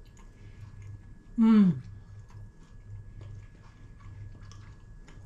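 A person chewing flaky puff pastry with quiet mouth sounds, and one short falling "mmm" of enjoyment about a second and a half in.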